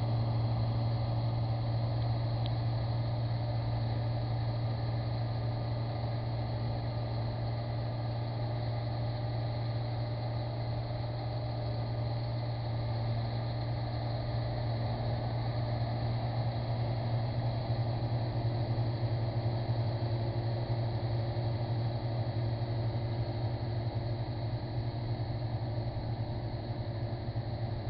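Claas Mercator 75 combine harvester working in the field: its diesel engine and threshing machinery running at a steady pace, a constant low hum.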